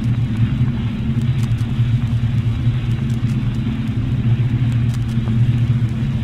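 Old-record surface noise with no music: a steady low hum and hiss, dotted with faint crackles and clicks, the noisy lead-in of a degraded ballroom-record loop that never reaches the tune.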